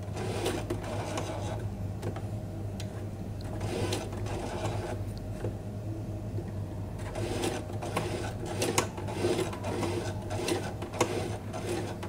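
Domestic electric sewing machine stitching slowly through felt: a steady motor hum with runs of needle-stroke clacks a few stitches at a time, pausing between runs as the felt is turned.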